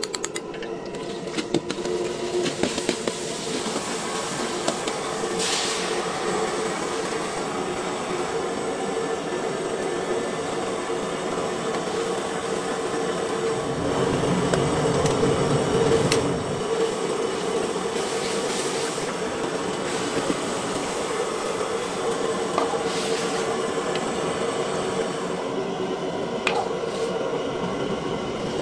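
Steady rushing roar of a commercial kitchen's wok stove and extractor hood, with a constant hum and scattered clinks of a steel ladle against metal containers. It grows louder for a couple of seconds about halfway through.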